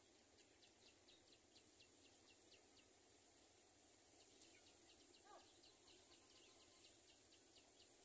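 Near silence: faint outdoor ambience with two runs of faint, rapid, high-pitched chirps, about four or five a second, and one faint lower call about five seconds in.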